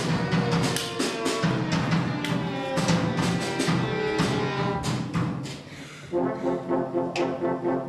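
Orchestra playing a live film score: fast, dense percussive strikes over sustained pitched lines, which fall away about five and a half seconds in. After a brief lull, sustained chords pulse at about three a second.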